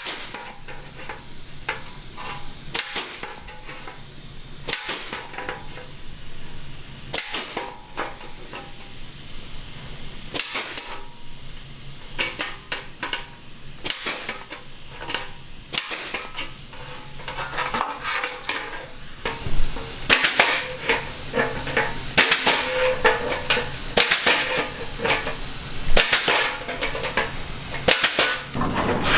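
Welding arc crackling and sizzling in short bursts while the brace is spot welded in place, with the bursts coming thicker and louder in the last third.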